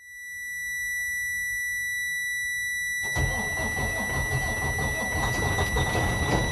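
A steady high dashboard warning tone sounds alone at first; about three seconds in the Detroit DD15 inline-six diesel starts and runs, and soon a loud, rapid, regular knock comes in with it. The knock is the number 1 connecting rod striking the crankshaft through a completely worn-out rod bearing.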